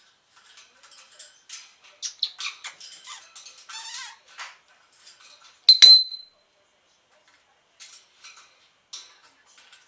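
Parrot mumbling and chattering in short high bursts, with one loud sharp click-like call ringing briefly about six seconds in.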